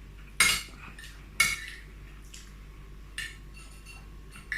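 Cutlery clinking and scraping against a plate of rice and stew while eating: two sharp clinks about a second apart, then two fainter ones near the end.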